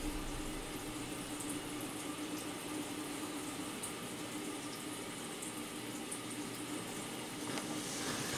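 Steady hiss with a faint low hum and nothing else: the room tone of a quiet room.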